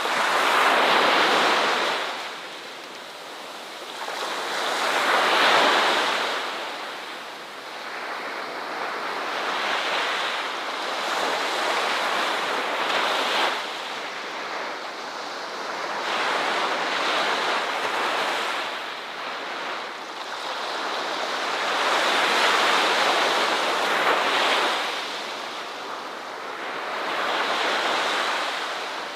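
Ocean waves breaking on a shore, the surf swelling and fading every four to six seconds.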